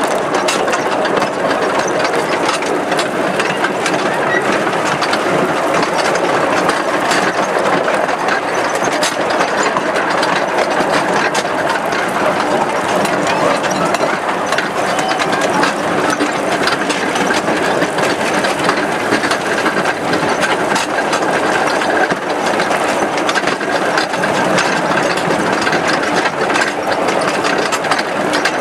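Running noise of a 15-inch gauge miniature railway train heard from inside a wooden carriage: a steady, dense clatter of the wheels on the track and the wooden body rattling as the train moves along.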